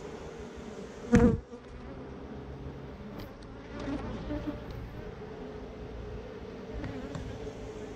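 Honeybees buzzing around an open hive, a steady hum. A single loud thump about a second in, and a few softer knocks around four seconds.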